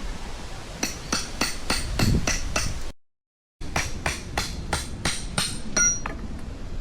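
A hammer driving tent pegs into the ground: quick, even strikes about three a second, each leaving a short ringing tone, in two runs broken by a brief cut of silence.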